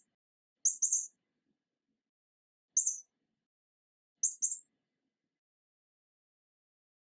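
Short, very high-pitched bird-like chirps, mostly in quick pairs, repeating every second or two.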